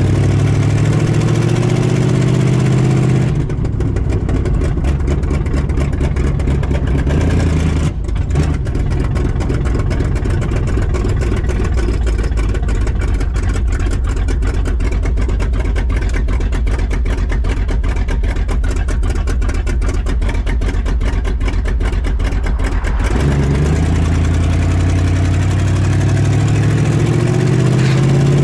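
1968 Dodge Charger R/T's V8 engine, fed by a Demon four-barrel carburetor, pulling hard under acceleration with pitch rising, then running steadily at speed, then climbing in revs again near the end.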